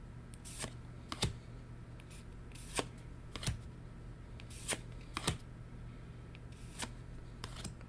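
Trading cards being slid and flicked one at a time while going through an opened booster pack, making short, sharp card clicks about once a second over a low steady hum.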